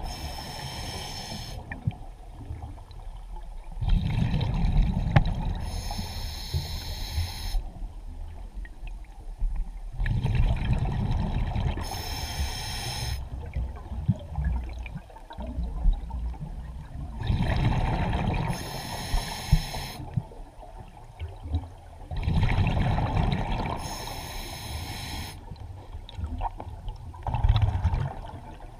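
A scuba diver breathing through a regulator underwater: a short hissing inhale, then a bubbling, rumbling exhale, repeating about every six seconds, five breaths in all.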